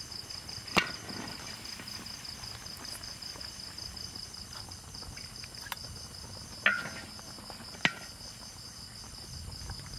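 Insects trilling steadily in a fast pulsing chorus, with a few sharp clinks of a metal ladle against the wok and a glass bowl as soup is ladled out, the loudest about a second in and twice near the end.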